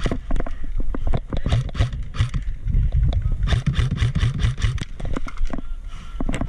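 Irregular scuffing, knocks and clicks from a player moving about on dry dirt with a body-worn camera, over a constant low rumble.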